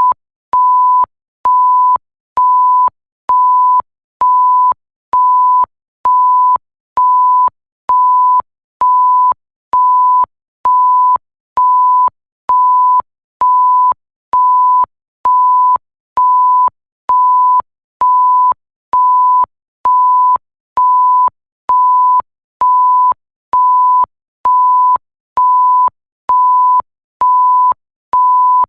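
Electronic censor bleep: one pure steady tone beeping on and off evenly, about once a second, each beep lasting about half a second with a faint click as it starts and stops.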